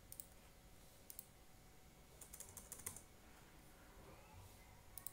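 Faint, scattered keystrokes on a computer keyboard: single taps and short runs of clicks with pauses between them.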